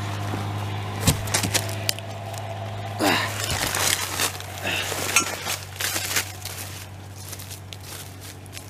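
Handling noise close to the microphone: clicks, knocks and rustling of dry leaves and grass, with a short grunt about three seconds in, then footsteps on dry leaves moving away. A steady low hum runs underneath and fades in the second half.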